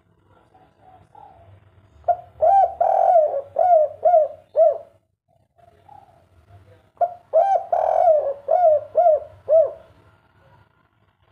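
Spotted dove cooing in the 'kuk 3' (derkukukuk 3) song style: two phrases about five seconds apart, each a quick run of about six arched coos.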